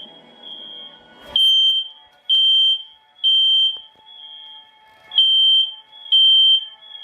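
Fire alarm sounding: a high-pitched beep about once a second, each beep about half a second long, some fainter than others. There is a brief knock about a second in.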